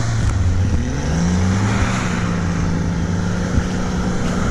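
Off-road 4x4 engine climbing in revs about a second in and then holding a steady high rev, working hard to pull a stuck vehicle out through snow.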